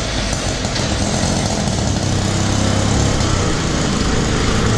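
Auto rickshaw's small single-cylinder engine running steadily with a fast, even putter.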